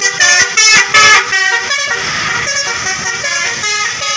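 Bus telolet basuri horn playing a fast tune of short multi-tone notes. It is loudest in the first second, then carries on more softly.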